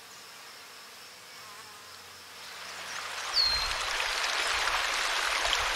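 Nature ambience: a steady high insect buzz, with a short falling chirp a little past halfway. From about halfway, rushing water of a small stream cascade swells in and becomes the loudest sound.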